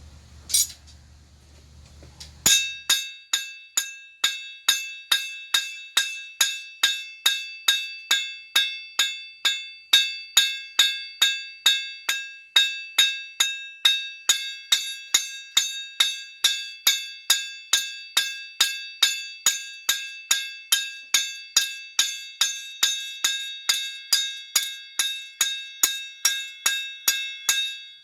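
Hand hammer striking a thick bar of tool steel on an anvil while it is cold forged into a blade. One blow lands, and after a short pause a steady run of blows follows at about three a second. Each blow rings on with a bright, bell-like metallic ring.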